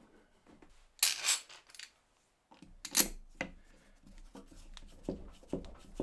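Metal bar clamps being set and tightened on a glued wooden block: a loud metallic clatter and scrape about a second in, a sharp clink about three seconds in, then a run of softer knocks and clicks, roughly two a second, as the clamp handles are wound tight.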